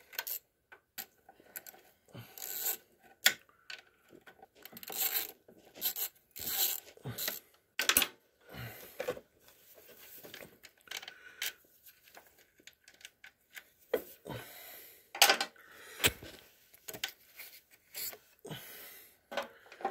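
Irregular metallic clicks, clinks and scraping of a wrench and steel linkage parts being worked on a Case Ingersoll garden tractor's travel control lever linkage, with no steady rhythm.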